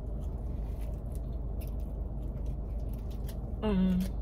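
A mouthful of burrito being chewed, with faint wet mouth clicks over a steady low hum. Near the end there is a short hummed "mm".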